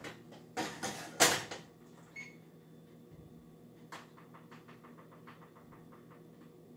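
Kitchen oven being set to preheat: a brief clatter of handling, a short electronic beep, then a quick run of light clicks, about five a second, for roughly two and a half seconds.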